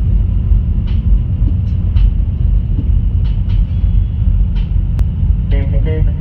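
Peterbilt 379 semi truck rolling at highway speed: a steady, deep rumble of diesel engine and road noise from the cab. Guitar music comes in near the end.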